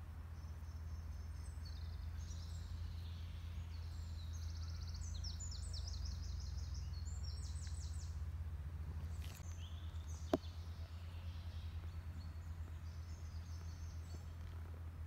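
Outdoor ambience with small birds chirping and trilling in high, rapid phrases, over a steady low hum. A single sharp click comes about ten seconds in.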